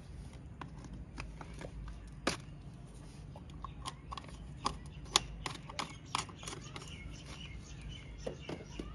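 Irregular light clicks and taps, with a sharper knock about two seconds in and another about five seconds in, over a low steady background hum.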